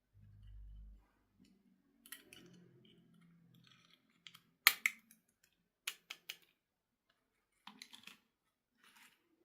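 Scattered sharp clicks and taps of small hard plastic pieces being handled, after a brief low thud at the start. The loudest click comes a little before the middle, with quick clusters of clicks about six and eight seconds in.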